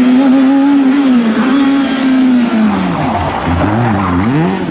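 Rally car engine held at high revs for a couple of seconds, then dropping and rising again in about three quick swings near the end, as the car brakes and blips down through the gears.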